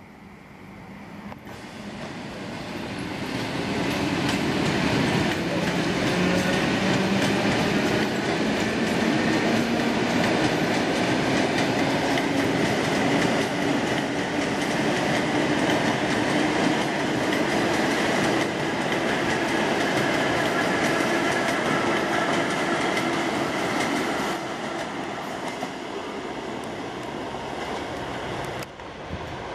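ED4M electric multiple unit accelerating away from a station: wheel-on-rail noise with a whine that climbs slowly in pitch as it gathers speed. The sound builds over the first few seconds, holds, then drops back as the train runs into a tunnel near the end.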